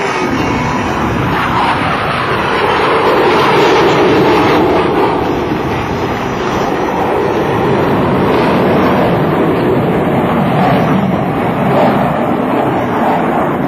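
Loud, sustained jet noise from US Navy F/A-18 Hornets flying past, their twin General Electric F404 turbofan engines running at display power, strongest about four seconds in.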